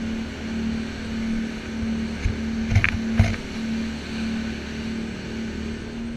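Lifeboat's diesel engines running at a steady drone under way, with the hiss of water and wind over the hull. A few short knocks come about halfway through.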